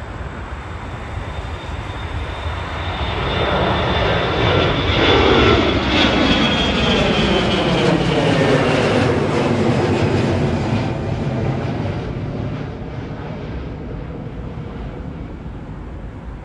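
Jet airliner's engines at takeoff power as it passes, building to a peak about five seconds in. A high whine falls in pitch as the aircraft goes by, and the sound then slowly fades.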